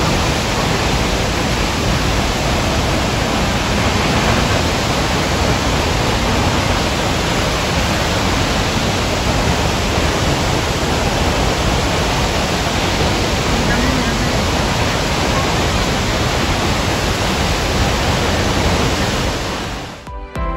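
Waterfall: a steady, loud rush of falling water that cuts off near the end.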